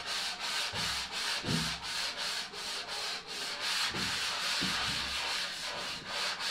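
Sandpaper on a hand-held block scrubbing back and forth over cured fairing compound on a fiberglass boat console, in quick even strokes of about three a second.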